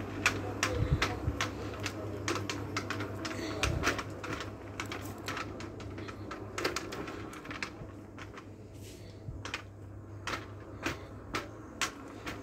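Footsteps and light irregular clicks on a hard shop floor, several a second, over a steady low hum.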